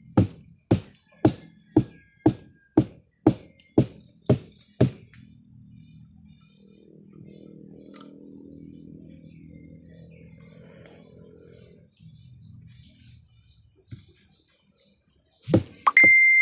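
A stick beating the flower stalk (manggar) of a sugar palm, sharp knocks about two a second, stopping about five seconds in and starting again near the end. This is the first beating of an untapped stalk, done to bring on the sap for tapping. Insects buzz steadily and high-pitched throughout.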